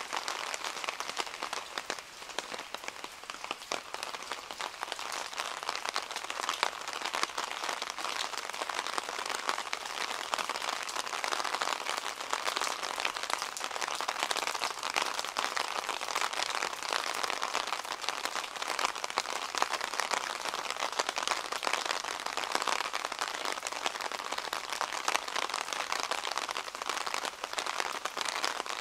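Steady rain falling, a dense, even patter of drops on hard surfaces.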